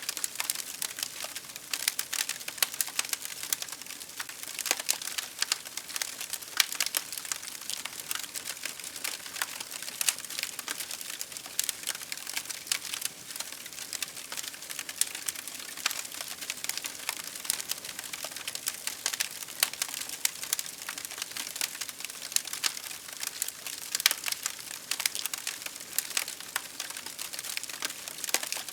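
Wood fire burning steadily, with a dense, continuous run of small crackles and pops over a soft hiss.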